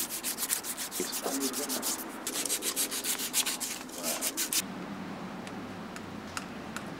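A strip of 150-grit abrasive paper worked back and forth around the steel pivoting shaft of a Rolls-Royce Silver Cloud III rear shock absorber, in rapid even strokes of about five a second, to smooth pitting off the shaft where the seal runs. The sanding stops about four and a half seconds in, leaving only faint handling sounds.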